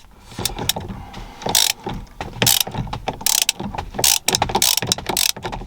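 Large ratchet wrench with a T50 bit clicking in repeated short bursts as the handle is swung back and forth, undoing the steering wheel's retaining nut.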